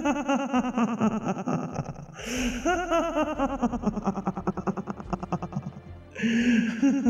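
Sinister, echoing laughter in three bouts of rapid 'ha-ha-ha' pulses: one at the start, another about two seconds in, and a third near the end.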